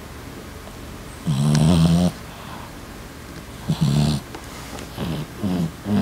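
Boston terrier snoring in its sleep. A long snore comes about a second in and another near four seconds, both with a breathy hiss, then shorter snores follow more quickly near the end.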